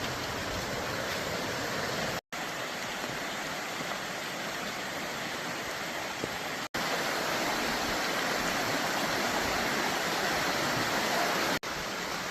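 Steady rushing of a waterfall, broken by three very brief gaps.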